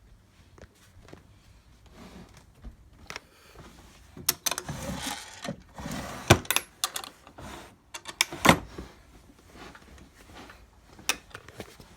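Mechanical clicks and clatter from a 1915 Underwood No. 5 manual typewriter being worked: scattered small clicks, a rougher rattling stretch in the middle, and two loud sharp clacks about six and eight and a half seconds in.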